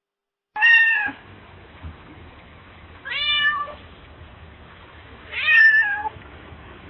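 A domestic cat meowing three times, short calls about two and a half seconds apart, over a faint low background hum.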